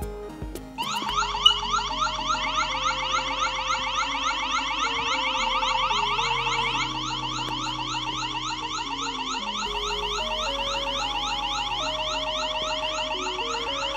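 Wyze security camera's built-in siren sounding, switched on about a second in: a loud electronic alarm of quick rising whoops repeated several times a second, going on steadily.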